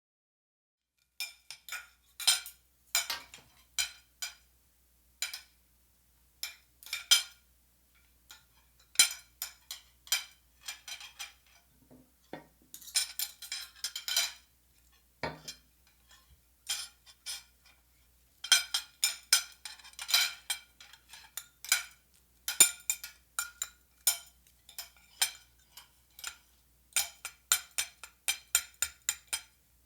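Metal utensils clinking against glassware, with bright ringing taps. Some come singly and some in quick runs of rapid clinks.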